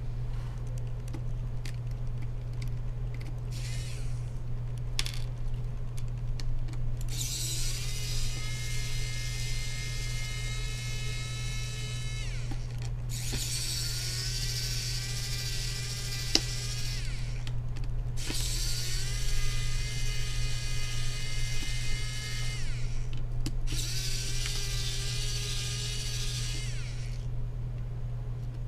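Small electric motor, most likely a cordless electric screwdriver driving laptop screws, whining in four spells of about four to five seconds; each spins up, holds a steady pitch and winds down. Scattered clicks come before the first spell, over a steady low hum.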